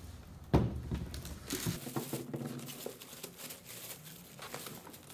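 Clear plastic wrapping crinkling and rustling as hands grab and handle a bagged part in a cardboard box, with a single sharp knock about half a second in.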